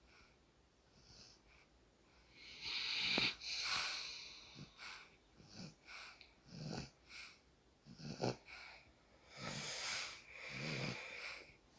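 Soft snoring in sleep: irregular, wheezy, breathy breaths. The longest and loudest comes about three seconds in, followed by shorter breaths, some of them with a low rumble.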